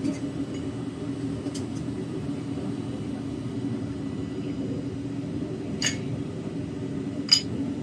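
Metal-melting furnace burner running with a steady roar while a bronze charge melts down in the crucible. Two sharp, ringing clinks come near the end.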